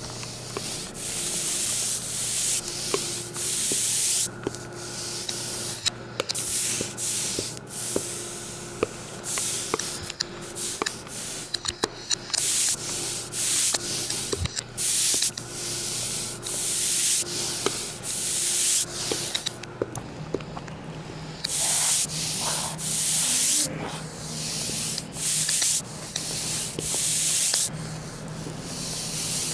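Repeated bursts of rasping, hissing noise like sanding or rubbing, each about a second long, over a steady low hum that steps up in pitch about twenty seconds in, with scattered clicks.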